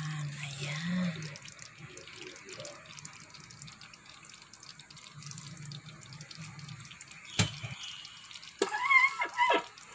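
Handling of a slow cooker's glass lid and ceramic crock: one sharp knock about seven seconds in, then a few quick clinks with a brief ringing tone near the end, over a faint low hum.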